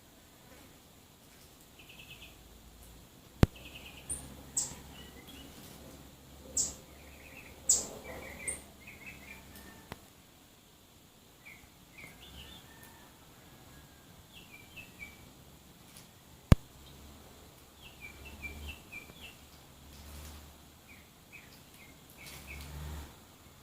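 Small songbirds chirping: scattered short, quick call notes throughout, with several louder high chirps in the first half. Two sharp clicks stand out, one early and one past the middle.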